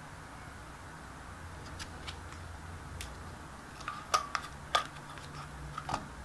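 Hard plastic toy tea cup and its clear scalloped rim clicking and tapping as they are handled and fitted together: a few scattered light clicks, then a cluster of sharper ones about four to five seconds in and again near the end, over a faint steady hum.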